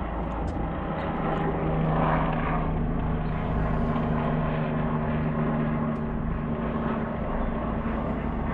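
A rescue helicopter flying low nearby, its rotor and engine giving a steady low rumble with a few held hum tones.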